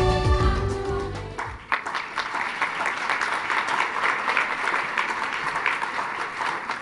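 The last chords of a music track end about a second and a half in, and an audience then applauds, the clapping thinning out near the end.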